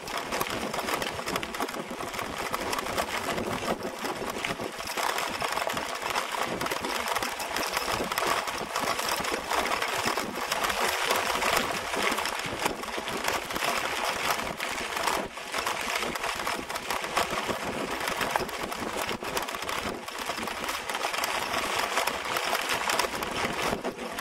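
Downhill bike rolling fast over a rough dirt trail, heard from a camera mounted on the bike: a continuous dense rattle and clatter of the bike and its gear shaking over the bumps, with tyre noise on the gravel.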